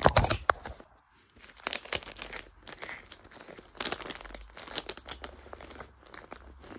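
Plastic packaging and clothes crinkling and rustling as items are pushed into a suitcase packing cube. The handling is irregular and loudest at the very start.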